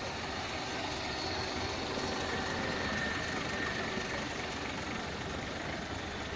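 Off-road 4x4 engines idling, a steady even running noise that swells slightly midway, with a faint steady high tone above it.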